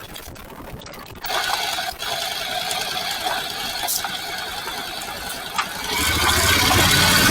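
Honda NC750X parallel-twin motorcycle with mechanical rattling and clicking. About six seconds in, the engine note grows louder and deeper.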